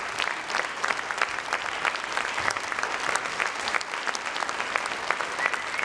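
Theatre audience applauding, a dense, steady patter of many hands clapping.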